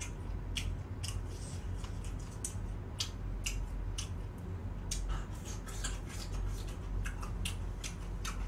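A person chewing and biting pieces of chicken close to the microphone: irregular short sharp crunches and mouth clicks, several a second, over a low steady hum.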